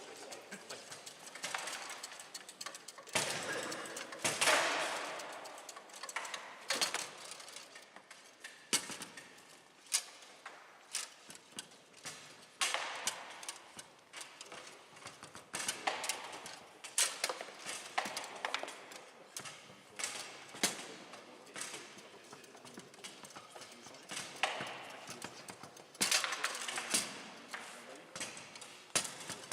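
Foosball play on a Bonzini table: irregular sharp knocks as the figures strike the ball and the ball bangs off the table walls, with rods clacking, over background voices.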